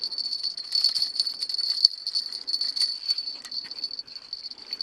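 Steady high-pitched chirring of insects, with scattered faint clicks and splashes as a spinning reel pulls a clump of waterweed in through the water.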